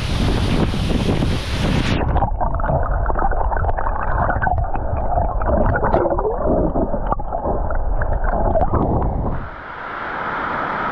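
Rushing, gurgling stream water. About two seconds in the sound turns abruptly muffled, losing its hiss, and near the end a steady hiss comes back.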